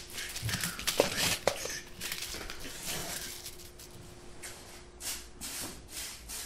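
Irregular rustling and scratching handling noises, with two light knocks about a second in and half a second apart, over a faint steady hum.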